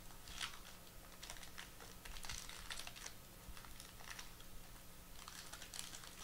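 Foil wrapper of a trading card pack being peeled and torn open by hand: faint, irregular crinkles and small crackles.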